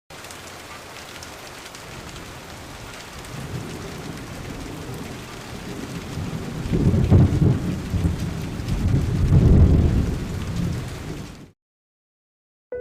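Steady rain with rolling thunder that builds from about three seconds in and peaks twice, around the middle and a little later, then cuts off suddenly near the end.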